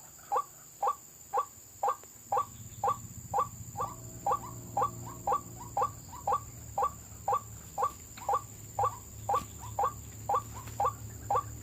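White-breasted waterhen (ruak-ruak) call, the kind played as a trapping lure: a short, clipped note repeated in a steady rhythm of about two a second.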